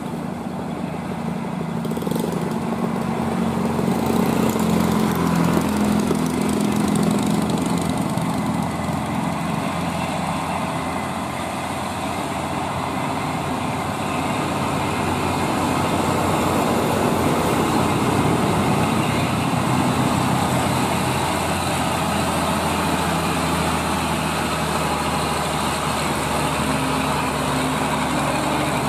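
Old Mitsubishi Fuso diesel truck engine labouring as the loaded truck climbs a steep grade, its note swelling and easing as it comes up and passes.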